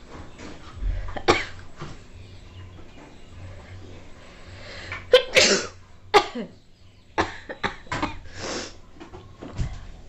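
A woman sneezing, set off by tickling inside her nostril with a twist of rolled paper. There is one burst about a second in, the loudest sneezes come about five to six seconds in, and more short sharp bursts follow toward the end.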